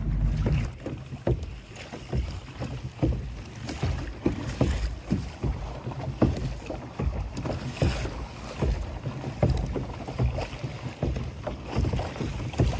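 Water lapping and slapping against the plastic hull of a pedal kayak under way, in short irregular splashes, with wind rumbling on the microphone.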